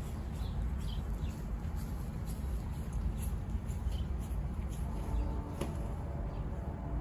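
Small birds chirping faintly over a steady low rumble of outdoor background noise, with a faint held tone coming in about five seconds in.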